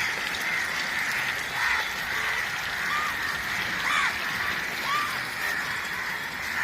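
Short bird calls, about one a second, over a steady, even hiss.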